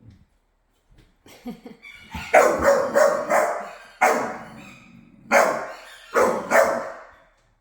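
A dog barking repeatedly, about eight sharp barks in bunches starting about two seconds in.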